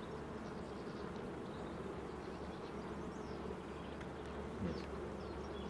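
Honeybees from an opened hive buzzing in a steady, many-voiced drone.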